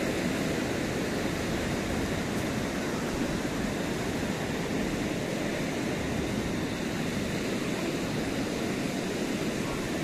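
Steady rush of surf breaking on a sandy beach, an even wash of noise with no pauses.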